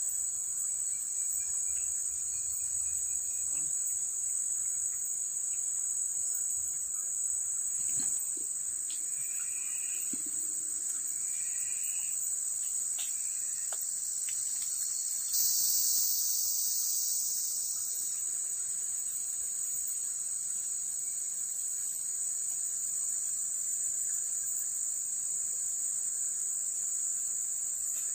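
Forest insects keeping up a steady, high-pitched drone. About fifteen seconds in, a louder insect chorus swells in for a couple of seconds, then drops back to the steady drone.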